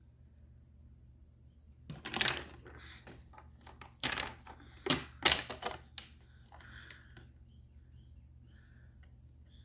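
A quick series of sharp clicks and clatters. There is a short burst about two seconds in and a longer run from about four to six seconds in.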